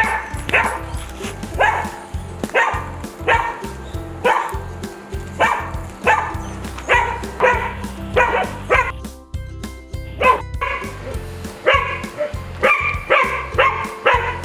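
A dog barking repeatedly, about one bark a second, pausing briefly about nine seconds in, then barking in a quicker run near the end, over background music.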